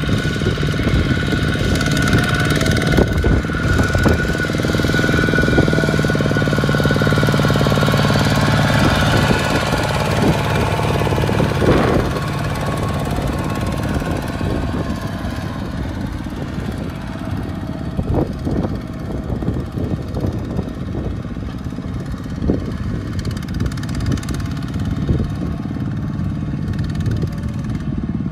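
Two-wheel walking tractor's single-cylinder diesel engine running steadily under load as it pulls a trailer of rice sacks through mud, with a knocking beat. It is louder for the first twelve seconds, then drops to a softer, steady run.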